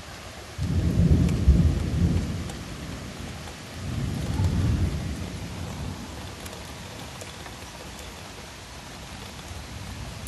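Thunder rumbling twice over steady rain: a sudden low rumble under a second in that fades over a couple of seconds, then a second, softer rumble about four seconds in that dies away.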